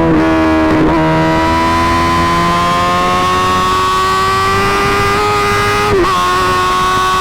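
Suzuki GSX-R1000 inline-four running at high revs through an M4 GP slip-on exhaust, its pitch climbing slowly under acceleration, with brief dips near the start, about a second in, and about six seconds in, like quick upshifts.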